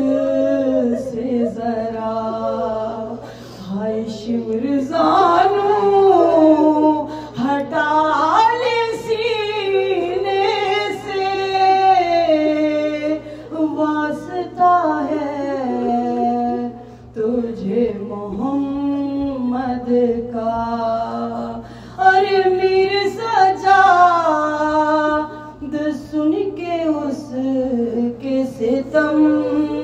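A woman singing a soz salam, an unaccompanied Urdu lament chant, in long wavering melismatic phrases with short pauses for breath. A faint steady low hum sits underneath.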